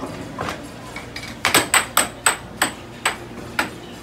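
Air hockey puck and mallets clacking in a rally: sharp plastic hits with a bright ring, one early on, then a quick run of them about every third of a second from about a second and a half in.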